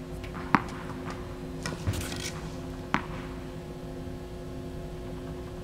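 A few short, sharp knocks of a tennis ball bouncing on an indoor hard court, roughly a second apart, as the next serve is readied, over a steady low hum.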